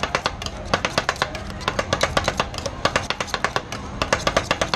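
Metal spatulas chopping and scraping an ice-cream mixture on the chilled steel plate of a Thai rolled-ice-cream pan: a rapid, uneven run of sharp metallic clacks, about six a second.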